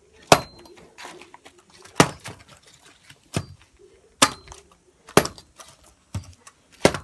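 Machete blows chopping a hard, dry chunk on bare ground: about seven sharp chops, roughly a second apart and unevenly spaced.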